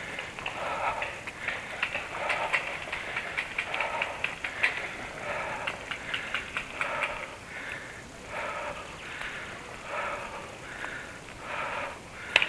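A person walking through dry brush: footsteps crunching on twigs and dry grass with scattered small snaps, and breathing close by in rough, irregular puffs about once a second.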